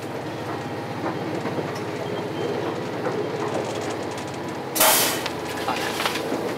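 Train running at speed: a steady rumble of wheels on rail and running gear. About five seconds in there is a sudden loud rush of noise lasting well under a second.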